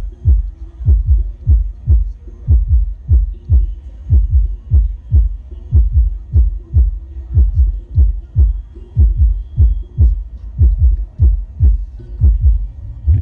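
Large outdoor sound system's subwoofers pounding out a steady, deep bass kick, about three beats a second, with faint music above it, during a sound-system test.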